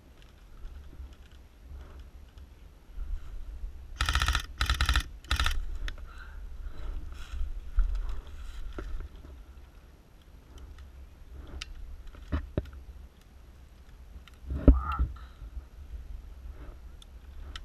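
Airsoft gun firing three short bursts of rapid clicking shots in quick succession, about four seconds in. Later come a few single sharp clicks and knocks over low rustling and handling noise.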